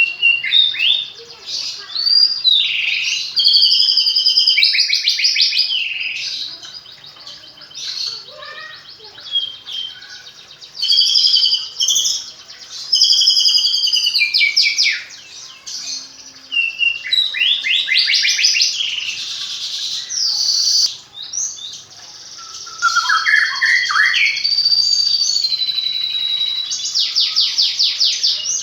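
Captive white-rumped shama (murai batu) singing a long, varied song of whistled phrases, slurred glides, trills and fast runs of repeated notes, strung together with fluent imitations of other birds' calls.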